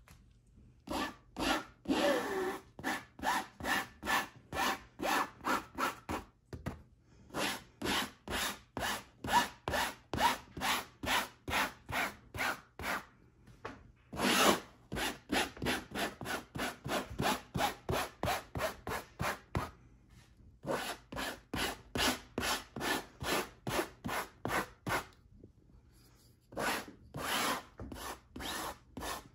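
Metal-bladed pet hair remover scraped repeatedly across a fabric upholstered chair seat, raking up pet hair. Short, even scraping strokes about two to three a second, in several runs with brief pauses between them.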